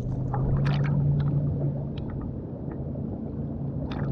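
Lake water sloshing and slapping against an action camera held half-submerged at the surface while swimming, with scattered small splashes over a steady low hum.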